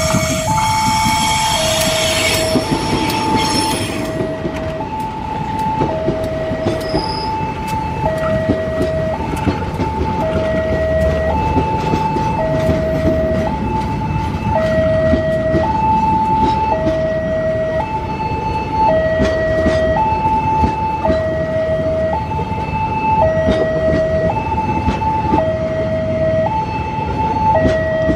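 A two-tone electronic level crossing alarm alternates high and low about once a second over the rumble and regular rail-joint clicks of a passing KAI passenger train behind a CC 203 diesel locomotive. The locomotive's horn sounds at the start and fades out within the first few seconds.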